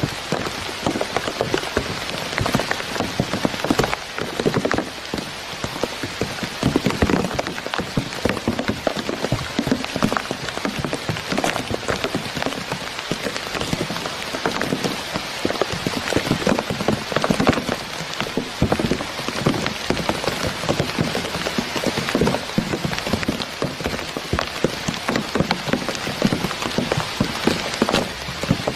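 Rain pattering on a surface, a dense steady crackle of many small drops.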